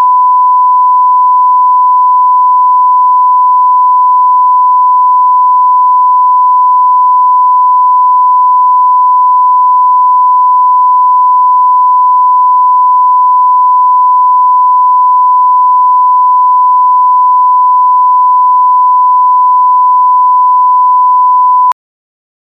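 Censor beep: one loud, steady, unbroken pure tone at a single pitch, cutting off suddenly with a click near the end.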